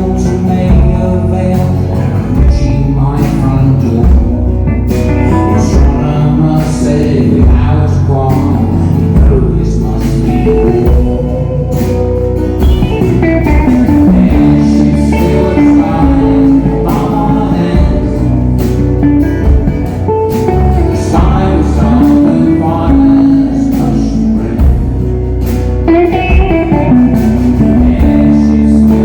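A live band playing a rock song, with electric guitar and singing over bass and drums.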